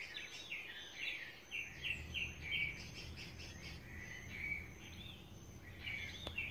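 Pre-dawn chorus of frogs and birds: many short chirping calls repeating without a break, over a faint low hum.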